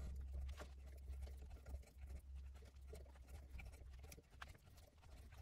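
Faint, scattered small ticks and scrapes of a hand tap being worked back and forth, cutting threads in a metal part, over a steady low hum.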